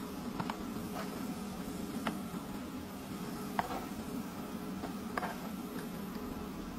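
Crinkle-cut fries frying in shallow oil in a pan, the oil sizzling and crackling steadily. Several sharp clinks as a metal spoon knocks against the pan while the fries are scooped out.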